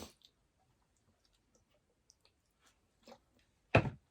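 Faint chewing and small mouth clicks while eating rice porridge, with a soft knock about three seconds in and one sharp, loud knock near the end.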